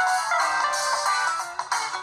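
Ringtone on an LG G Flex D959 smartphone playing: a melody of quick, short notes, about four a second.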